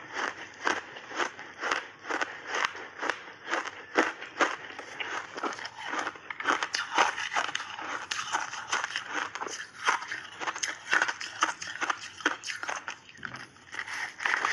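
Crunchy frozen ice bars being chewed close to a clip-on microphone: steady crisp crunches, about two to three a second, with a fresh bite into a purple ice bar near the end.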